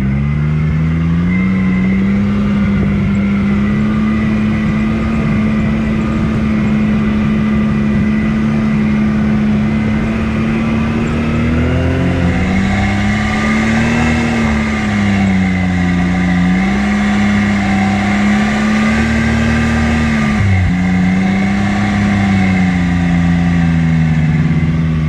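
ATV engine running steadily under way, its pitch dipping and picking back up several times with the throttle.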